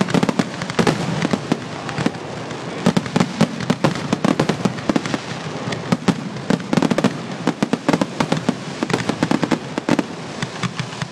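Aerial firework shells bursting in a rapid barrage, sharp bangs coming several a second and overlapping with no let-up.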